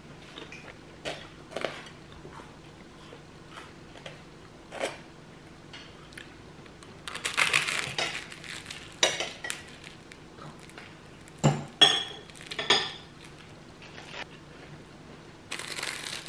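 Someone eating at a table: crunchy bites into toast, about seven seconds in and again near the end, with a fork and knife clinking and ringing against a ceramic plate in between.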